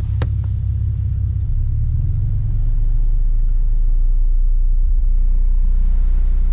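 Car audio subwoofers playing a 30 Hz test tone at high volume: a loud, steady, deep bass drone in the cabin that grows louder about two seconds in. There is a sharp click just after the start.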